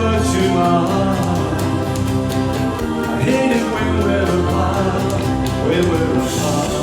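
Music: a song's band accompaniment with a melody line gliding over steady low notes.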